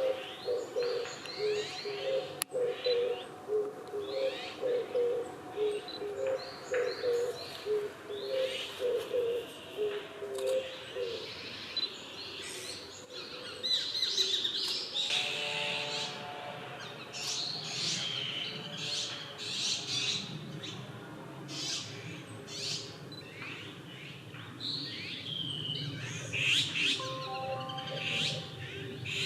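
Woodland birds calling and chirping, many short high notes throughout. A run of low, evenly repeated call notes sounds through roughly the first eleven seconds.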